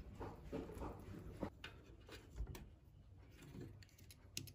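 Faint handling sounds of a small plastic latch part in the fingers: scattered light clicks and taps over quiet room tone, with a couple of sharper clicks near the end.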